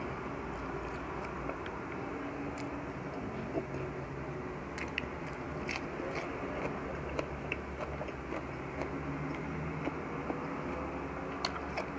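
Close-up chewing and biting of a man eating rice, tocino and cucumber by hand, with scattered small crisp clicks and crunches. Under it runs a steady low background hum.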